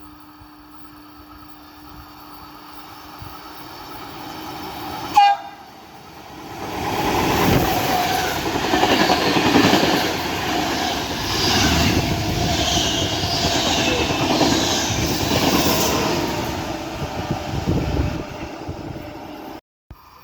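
Intercity train hauled by two E464 electric locomotives passing through a station at speed: a short horn blast about five seconds in, then some twelve seconds of loud wheel and carriage noise with clickety-clack, which cuts off abruptly near the end.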